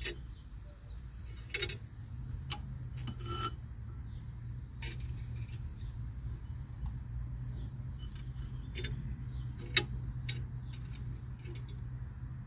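Scattered sharp metallic clicks and clinks from a tool being turned to push a disc brake caliper piston back into its bore, over a steady low hum.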